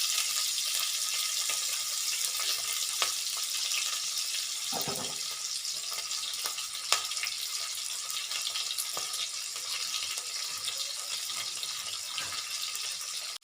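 Green chillies, ginger and curry leaves sizzling in hot oil in a bell-metal uruli: a steady high hiss, with a few faint clicks and one sharper tap about seven seconds in.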